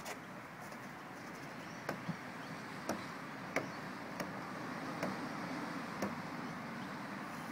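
A string of about seven short, sharp knocks, irregularly spaced, over a steady background of outdoor noise.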